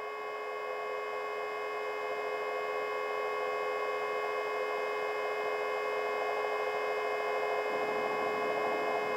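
Steady whine and hum of a Vertol tandem-rotor heavy-lift helicopter as carried by the cockpit intercom, several fixed tones over a hiss, slowly growing louder. A low rushing noise joins near the end.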